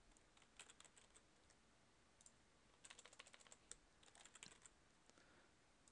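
Faint computer keyboard typing: short bursts of keystrokes separated by pauses, the longest run about halfway through.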